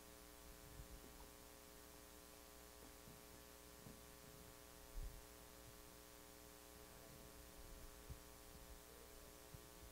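Near silence: room tone with a steady low hum and a few faint knocks.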